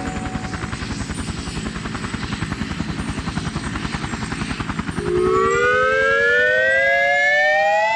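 Cartoon helicopter sound effect: a fast, even rotor chop. About five seconds in, a whine rises steadily in pitch over the chop, which fades away.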